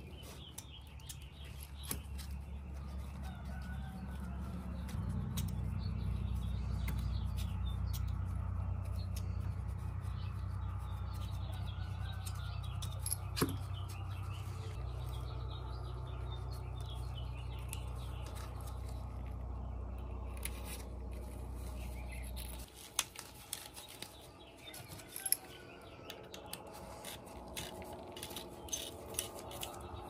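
Small metal clicks and taps of Zippo lighter inserts being handled and put back together, over a steady low hum that stops abruptly about three-quarters of the way through.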